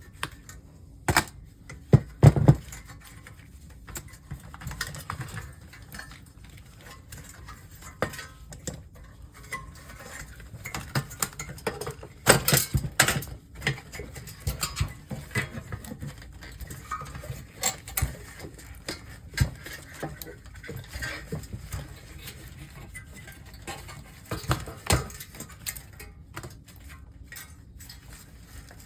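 Irregular clicking and clattering of hand tools and metal monitor parts being handled during disassembly, with the loudest knocks about two seconds in and again about twelve seconds in.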